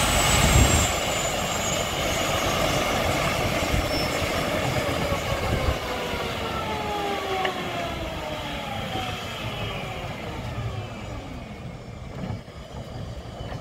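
Sikorsky S-76 ambulance helicopter spooling down after engine shutdown: a falling turbine whine with several tones sliding steadily downward as the main and tail rotors slow, growing gradually quieter.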